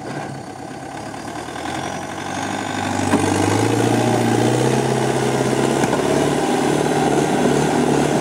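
Belarus tractor's diesel engine revving up about two to three seconds in, then running hard and steady under heavy load as it hauls a loaded trailer up a muddy slope out of deep ruts.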